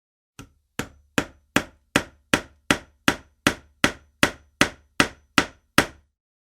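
A hammer striking repeatedly at a steady pace, about two and a half blows a second, fifteen blows in all. The first blow is lighter, and each blow is a sharp knock with a short ring.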